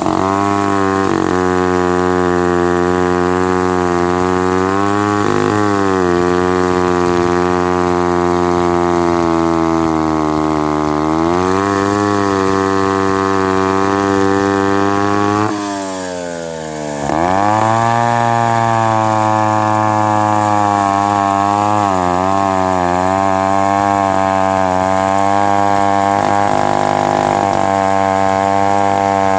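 Mid-1950s Lombard 35 gear-drive two-stroke chainsaw running hard in a cut through seasoned maple, its engine note sagging and recovering as the bar loads and frees. About halfway through, the revs fall sharply for a second or so and then climb back up.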